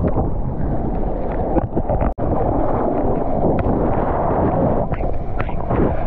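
Water rushing and wind buffeting a mouth-mounted GoPro held at water level as a surfer moves through a small breaking wave: a steady loud rush with small splashes, cutting out for an instant about two seconds in.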